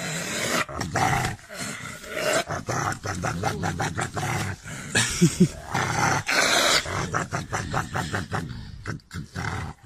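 A husky vocalizing in an irregular run of rough, grumbling sounds that keep breaking off and starting again, with a brief low pitched note about five seconds in.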